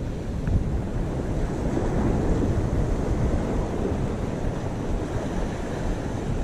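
Ocean surf washing around the rocks below, with wind rumbling on the microphone; a steady rushing noise with no distinct events.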